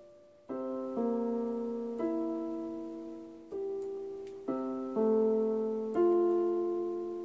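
Portable electronic keyboard in a piano voice, played slowly by a beginner: notes and chords struck about once a second at an uneven pace, each left to ring and fade.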